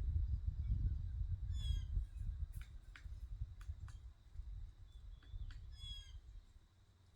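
Birds calling at a feeder: two short harsh chattering calls, about a second and a half in and again near six seconds, with sharp single chirps between them. A low rumble under them is loudest in the first two seconds and then fades.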